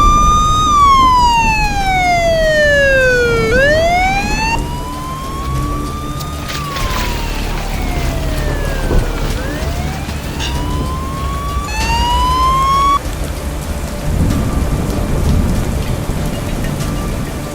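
Police siren wailing, its pitch rising and falling slowly in long sweeps and cutting off suddenly near the end, over steady heavy rain.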